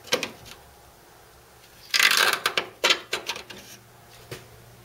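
Screwdriver working the quarter-turn fasteners of a VW T25 van's front grille, clicking and scraping against the grille: a sharp click at the start, a loud burst of rattling and scraping about two seconds in, then smaller clicks and scrapes and one more click near the end.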